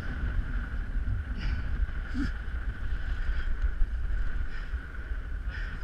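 Strong wind buffeting the camera microphone, with a steady high whine underneath and a few light knocks.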